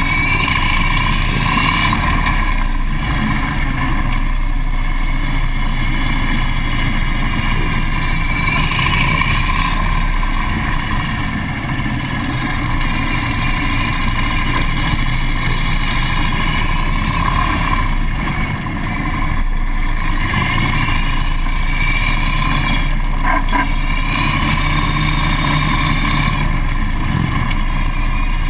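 Harley-Davidson police motorcycle's V-twin engine running as the bike rides, heard from a camera mounted on the bike and mixed with wind and road noise. The engine note shifts a little as the rider changes speed.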